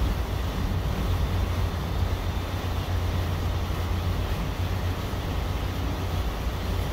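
Steady low rumble of a small boat under way, its engine and water noise mixed with wind buffeting the microphone.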